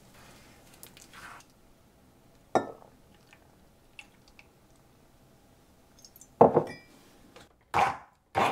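A glass measuring jug clinks once, then clatters, and near the end a stick blender starts up in short bursts, about two a second, blending banana and ice cream in milk.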